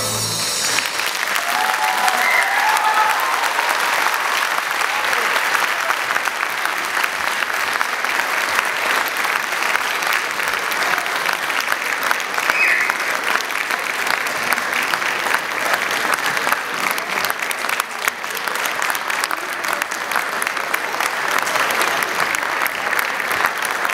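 Audience applauding steadily at the end of a dance number, the clapping starting as the music stops.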